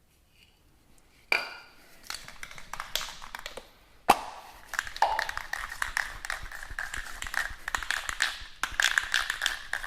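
Two sharp knocks, then a dense, continuous metallic rattling and clicking that runs on from about five seconds in.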